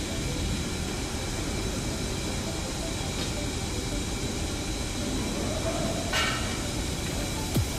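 Steady machinery noise of a forge shop, a low rumble under a hiss, around a pneumatic forging hammer standing between blows. A short burst of hiss comes about six seconds in, and a faint click near the end.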